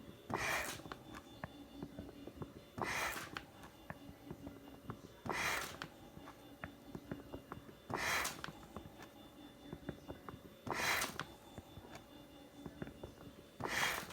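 Homemade mechanical ventilator running through its breath cycle: a short rush of air about every two and a half seconds, six times, with faint mechanical clicks and a low hum between the breaths.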